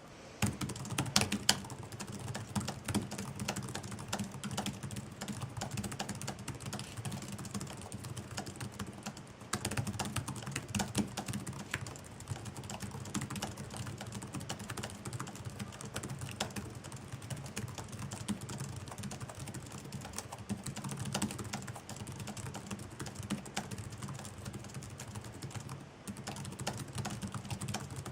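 Continuous fast typing on a computer keyboard, many keystrokes a second, starting just after a short pause.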